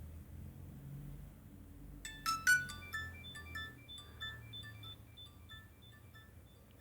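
A Nokia 6233 mobile phone playing a ringtone through its built-in speaker: a quick electronic melody of short beeping notes at several pitches. It starts about two seconds in, loudest in its first notes, and stops shortly before the end.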